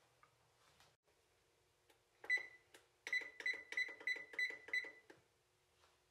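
Electronic oven control panel beeping as its keys are pressed to set the bake temperature: one short high beep, then a quick run of about seven beeps, roughly three a second.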